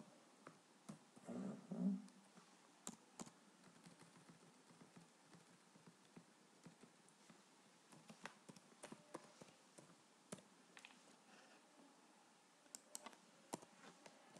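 Faint typing on a computer keyboard, a few words at a time: scattered, irregular key clicks, with a brief, louder low sound about two seconds in.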